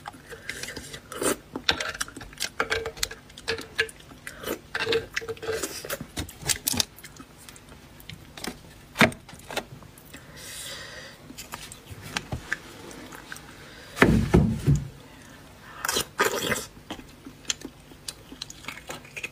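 Metal spoon scraping and clicking against roasted beef marrow bones as the marrow is scooped out, a run of irregular sharp clicks. A loud low thud comes about two-thirds of the way through.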